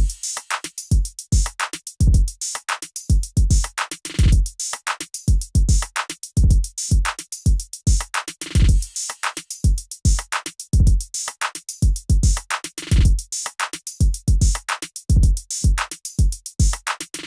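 Electronic music with a steady drum-machine beat of deep kick drums and crisp hi-hat ticks.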